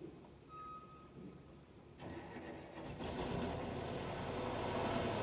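An engine starts up about two seconds in and keeps running, getting louder, with a steady low hum under a broad rushing noise.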